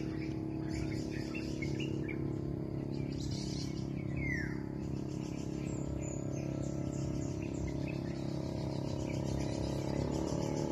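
Birds chirping in short calls, with one clear downward-sliding call about four seconds in, over a steady low hum.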